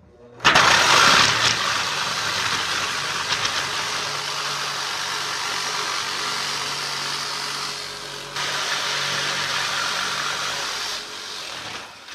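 Corded jigsaw cutting a circle out of thin galvanized steel sheet, blade sawing steadily through the metal. It starts about half a second in, dips briefly about eight seconds in, and stops about a second before the end.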